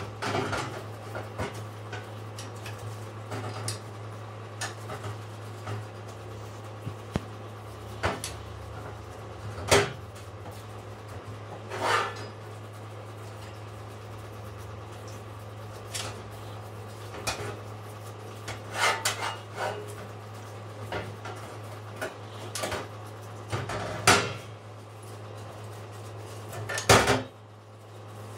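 Metal rifle parts clinking and knocking as they are handled and worked by hand, in irregular single knocks with pauses between, over a steady low hum.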